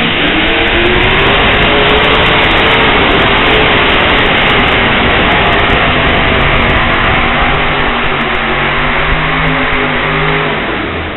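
Competition tractor-pull engine at full throttle, very loud, its pitch slowly falling through the run, then easing off near the end.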